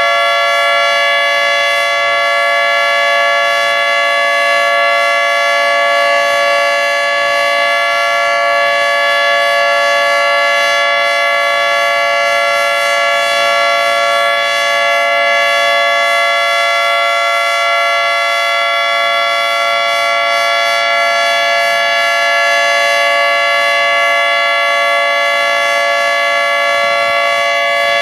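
Federal Signal 3T22 outdoor warning siren sounding its steady alert signal: a loud, unbroken chord of several tones holding one pitch without rising or falling. This is the alert tone of a routine monthly siren test.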